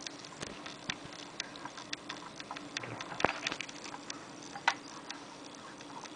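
Handling noise from a box video camera and its C-mount adapter being turned in the hands: scattered light clicks and taps, with two sharper clicks about three seconds and nearly five seconds in, over a faint steady hum.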